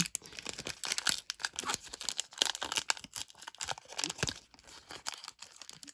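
Foil booster-pack wrapper being torn open and crinkled by hand: a run of irregular crackling tears and rustles that thins out near the end.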